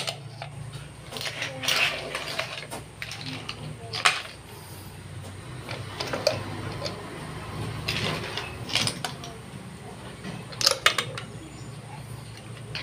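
Cooked clams in their shells clattering onto a serving dish as they are pushed off a spatula, a run of scattered sharp clicks and clinks of shell against shell and dish.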